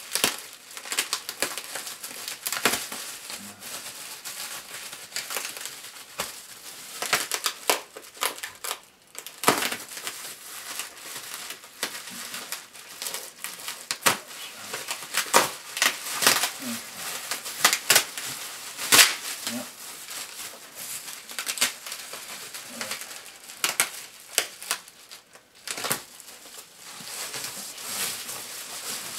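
Plastic bubble wrap crinkling and crackling as it is cut and pulled open from around a packed item, with dense, irregular sharp crackles throughout.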